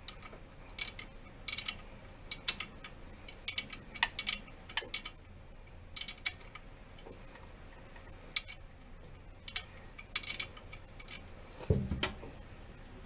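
Scattered light metallic clicks and clinks of a wrench and wiring connectors being worked loose at an alternator, with a duller knock near the end.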